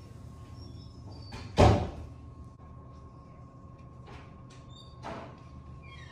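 A loud, sharp thump about a second and a half in and a softer one about five seconds in, over a faint steady high tone.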